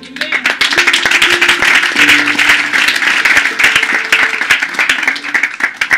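A congregation applauding: many hands clapping fast and loud over music with held notes. The clapping stops abruptly near the end.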